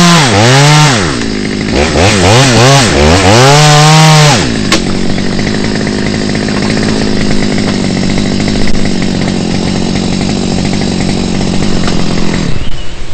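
Chainsaw engine revved up and down several times, its pitch rising and falling. After about four seconds it gives way to a steady engine drone at a constant pitch that changes near the end.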